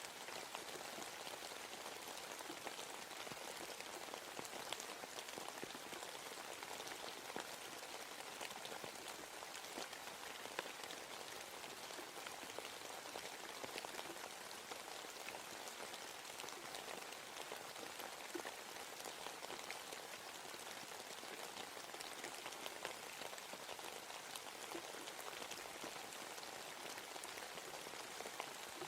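Steady rain falling in a forest, a constant patter of many small drops striking leaves and surfaces.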